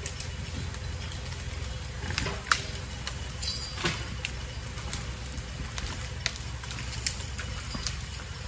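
A vehicle engine running steadily at low speed, with scattered clicks and a few sharper knocks, the loudest about two and a half seconds in.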